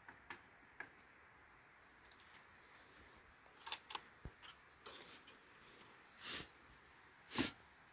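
Quiet clicks and knocks from a rifle being handled on a shooting bench, a cluster of them about halfway through. Two louder rustling scrapes follow near the end, the last the loudest, as the rifle is shouldered and settled on its rest. No shot is fired.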